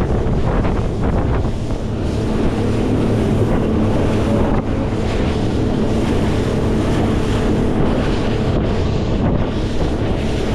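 Highfield Sport 390 RIB running flat out at about 23 knots: wind buffeting the microphone over the steady drone of its outboard motor and water rushing and spraying off the hull.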